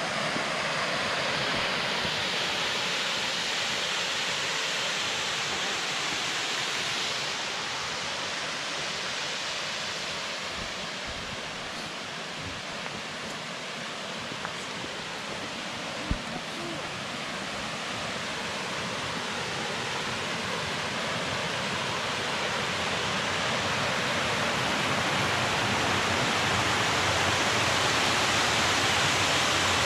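Waterfall rushing in a steady wash of water noise. It dips a little around the middle and grows louder toward the end as the falls come closer.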